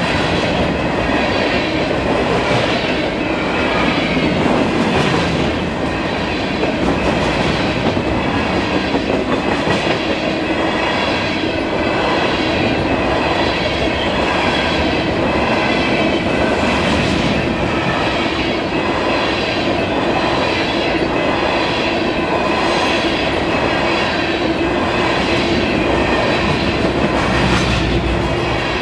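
Freight train of covered hopper cars rolling past at close range: a steady, loud rumble of wheels on rail with a repeating clickety-clack and a steady high ringing from the wheels.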